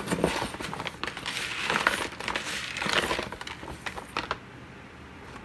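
Packet of black glutinous rice crinkling and rustling as rice is scooped out of it a cupful at a time, stopping about four seconds in.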